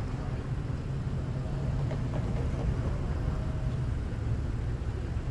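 Classic cars driving slowly past one after another, with a steady low engine rumble.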